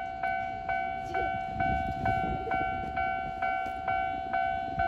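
Japanese level-crossing warning bell ringing steadily, about two strikes a second, each a bright ringing chime. A low rumble of the train runs underneath.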